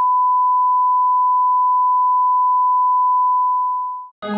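Broadcast line-up test tone, a steady single-pitch 1 kHz sine beep that goes with colour bars, held at a constant level and cut off abruptly about four seconds in. Music starts just before the end.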